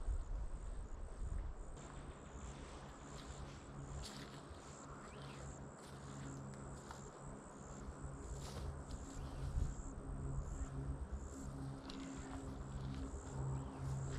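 Insects buzzing steadily at a high pitch over scattered rustling and knocks, with a low steady hum coming in about two seconds in.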